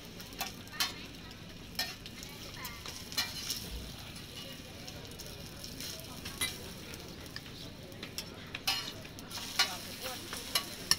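Thai roti banana pancake with egg sizzling on a flat round griddle. Scattered clicks and scrapes of a metal fork and spatula on the griddle as the pancake is folded.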